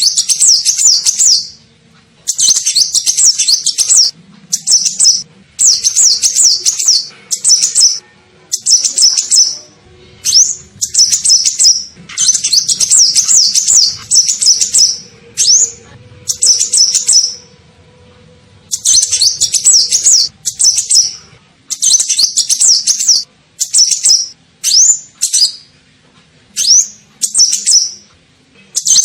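Kolibri ninja sunbird song used as a bird-lure call: rapid, high twittering phrases of fast up-and-down notes, each a second or two long, repeated with short pauses.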